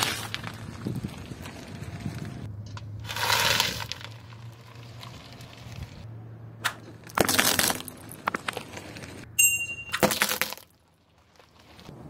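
Car tyre crushing a plate of crunchy orange puffed snack sticks: four loud crackling crunches over a low steady hum from the car.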